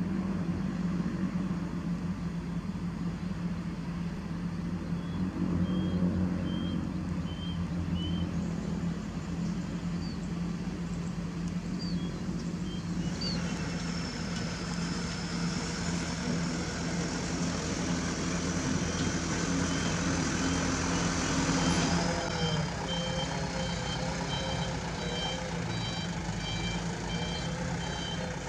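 Diesel engines of a Mitsubishi light dump truck and a Komatsu PC200 excavator running at a quarry. From about two-thirds of the way in, a reversing alarm beeps steadily over the engines.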